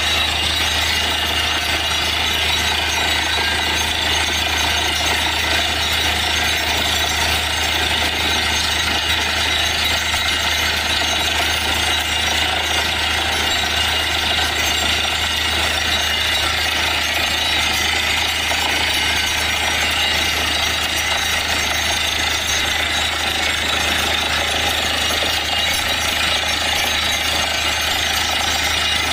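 Truck-mounted borewell drilling rig running steadily: the air-driven down-the-hole hammer pounds rapidly at the bottom of the bore under the constant low drone of the rig's engine and compressor. Compressed air blasts water and rock cuttings out of the hole, the sign that the bore has struck groundwater.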